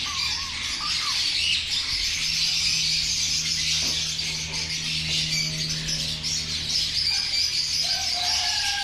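Many small caged birds chirping and chattering together in a dense, unbroken chorus, with a few thin whistled calls near the end.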